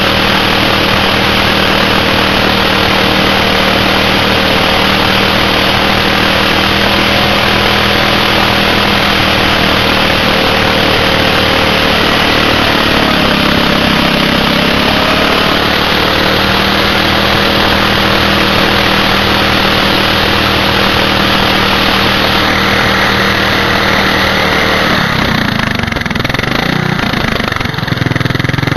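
Riding lawn tractor's small engine running hard while its rear tyre spins in a burnout against a wooden board, a steady engine note over a hiss of scrubbing rubber. The note dips briefly about halfway through, and near the end it drops to a lower, rougher running as the wheel stops spinning.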